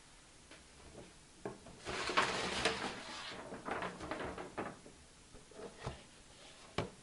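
A brown kraft-paper shopping bag rustling for over a second as something is pulled out of it, then scattered light clicks and two sharp knocks of a hard plastic step stool being handled near the end.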